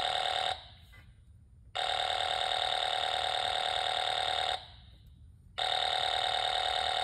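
A magneto timing buzzer sounds a steady pitched buzz in three stretches: a short one ending about half a second in, one of nearly three seconds, and a third starting about a second later. It switches on and off abruptly as the Slick magneto is turned on the O-200, and the point where the buzzing stops marks the magneto's correct firing point.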